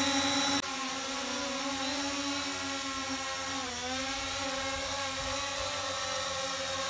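DJI Phantom 4's four motors and aftermarket three-bladed propellers whirring as a steady multi-tone hum while the drone hovers and comes down to land. The hum drops suddenly in loudness about half a second in, and its pitch dips briefly a little past the middle.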